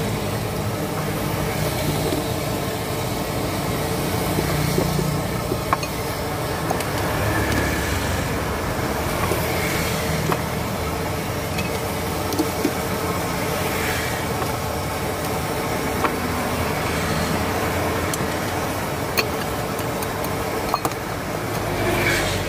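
Steady road traffic noise with a low rumble, broken by a few sharp clinks of a wire noodle strainer and chopsticks against bowls.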